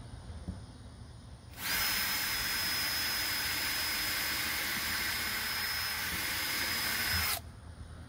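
Handheld power drill running at a steady pitch for about six seconds, starting a second and a half in and stopping sharply, drilling a pilot hole for a screw through the hard plastic of a Jeep door-handle accent.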